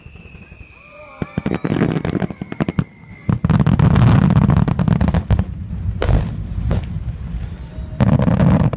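Fireworks going off in quick succession: booming shell bursts followed by dense crackling that thickens into a continuous barrage about three seconds in and again near the end, with a faint falling whistle in the first few seconds.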